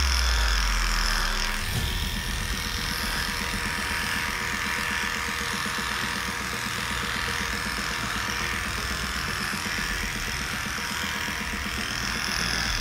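Heiniger cordless electric clipper running steadily as its blade shaves through a dog's matted coat, a fast even buzz with a deeper low hum in the first two seconds.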